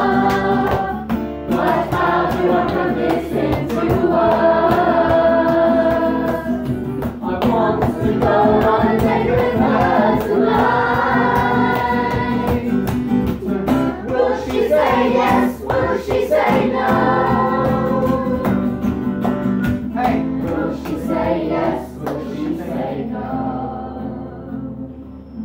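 A mixed group of children and adults singing together, with an acoustic guitar accompanying. Near the end the singing thins out and gets quieter.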